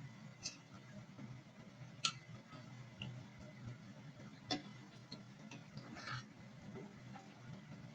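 About five short, sharp light clicks at irregular intervals, over a faint, steady low hum.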